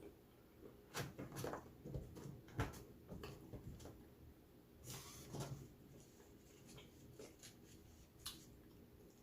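Faint, irregular clicks and light knocks of small objects being handled, a few louder ones scattered among softer ticks.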